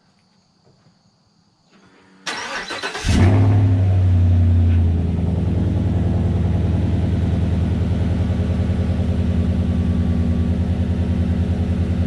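Chevrolet Silverado 5.3-litre V8 starting: the starter cranks about two seconds in and the engine catches within a second. It runs at a louder, higher fast idle for a couple of seconds, then settles to a steady idle. This is the first start on fresh oil after an oil change.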